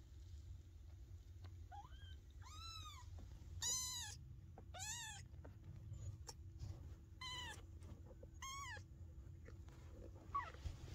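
Very young Maine Coon kittens mewing: a string of short, high-pitched mews, each rising then falling in pitch, about six bunched between two and nine seconds in, with a fainter one near the end.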